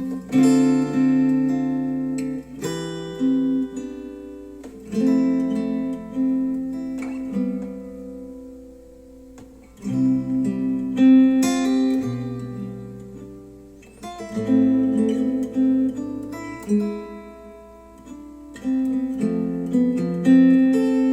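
Acoustic guitar music, plucked and strummed chords that ring and die away in phrases, played back through Wharfedale Denton 80th bookshelf speakers driven by a Cambridge AXR100 integrated amplifier.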